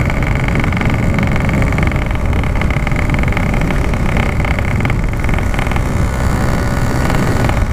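Yamaha RX-King 135cc two-stroke motorcycle engine running steadily at cruising speed, mixed with wind rushing over the helmet microphone.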